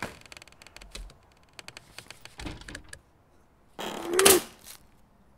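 Foley-recorded staple gun firing with a loud, sharp shot about four seconds in, after a run of small clicks and knocks.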